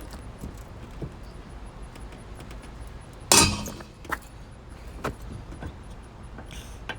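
Hand tools being forced against an over-torqued wheel lug nut: one loud metallic clank a little over three seconds in, ringing briefly, then a couple of light clicks.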